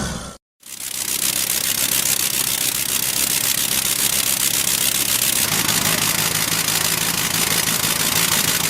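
A vehicle engine running steadily, after a brief cut to silence about half a second in. A low steady hum joins about halfway through.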